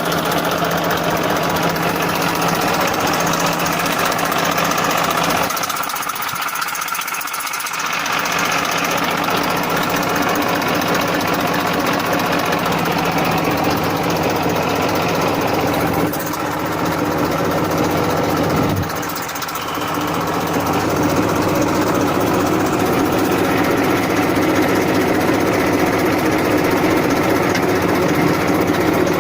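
Massey Ferguson 1035 DI tractor's three-cylinder diesel engine idling steadily, with the level dipping briefly about six seconds in and twice more later.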